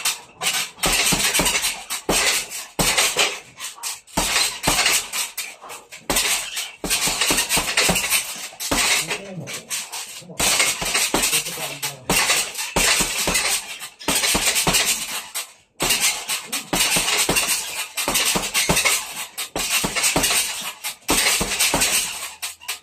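Rapid flurries of gloved punches landing on a hanging heavy bag, with the bag's metal hanging hardware on its stand clattering and jingling. The flurries are nearly continuous, with brief pauses between combinations.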